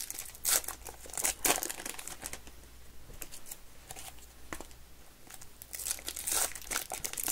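Trading card pack wrapper (2022 Topps Fire) crinkling and tearing as it is pulled open by hand, in short rustling bursts: loudest about half a second in, around a second and a half in, and again near six seconds.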